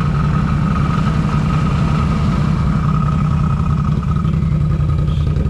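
Can-Am ATV engines idling steadily at close range.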